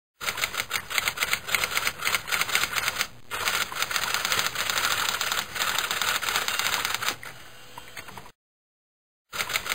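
Typewriter keys clacking in a rapid run of keystrokes, with a short pause about three seconds in. The clacking breaks off abruptly about eight seconds in and starts again about a second later.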